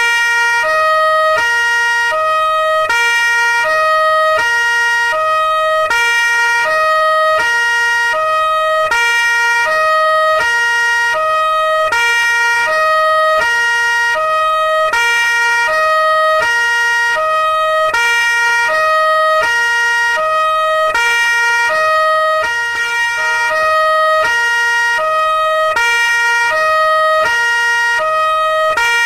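Police siren sounding a two-tone hi-lo call, switching back and forth between a lower and a higher note, each held about half a second, steady and loud throughout.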